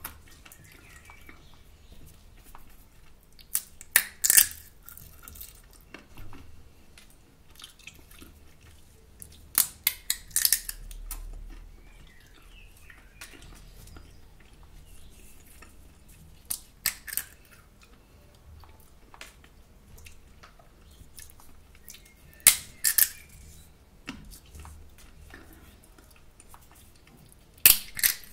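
Roasted salted sunflower seeds being cracked open in the shell while eating: short clusters of two to four sharp cracks, about every six seconds, with quiet in between.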